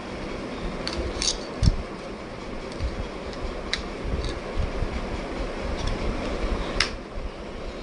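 A handful of sharp clicks and light taps from a plastic remote and its packaging being handled, spread unevenly over several seconds, over a steady low background rumble.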